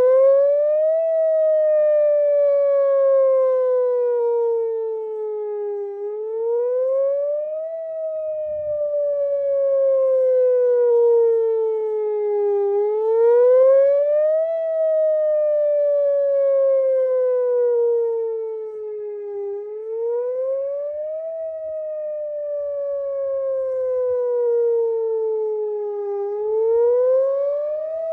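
Whelen electronic outdoor warning siren sounding its wail tone, which the uploader says has bad speaker drivers. The pitch climbs quickly for about a second and a half, then slides slowly down for about five seconds, repeating four times.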